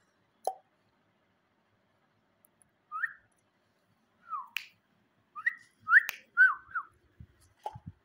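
Rose-ringed parakeet giving short whistled chirps, some rising and some falling, in a few clusters from about three seconds in, the loudest about six seconds in. A few sharp clicks come in between.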